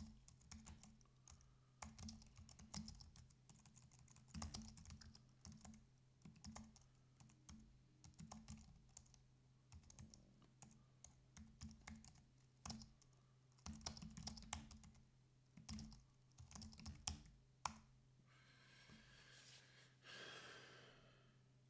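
Typing on a computer keyboard: irregular bursts of quick keystrokes over a steady low hum, stopping a little before the end. A soft hiss lasting about three seconds follows the last keystrokes.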